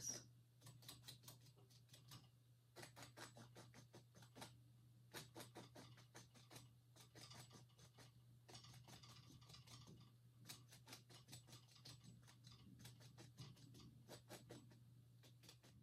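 Faint, quick scratching strokes of a tool's point drawn through wet oil paint on a stretched canvas, in short runs with brief pauses, as thin sticks and twigs are scratched into the painting. A faint steady low hum runs underneath.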